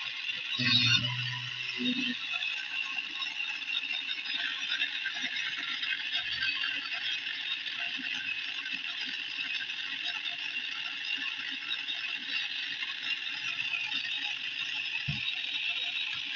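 Small electric PCB mini drill running steadily with a high whine, with a low knock about a second in.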